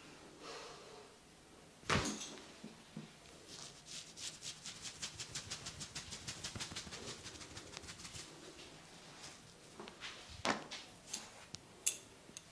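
Hand massage on the head and body: a sharp impact about two seconds in, then a fast, even run of tapping strokes, about six a second, for some four seconds, and a few more sharp cracks near the end.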